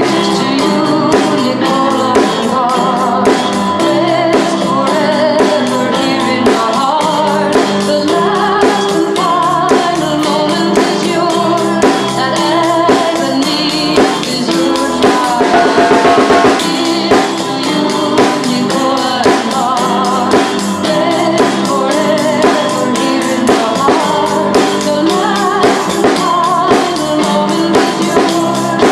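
Music with drums keeping a steady beat under dense, layered pitched parts.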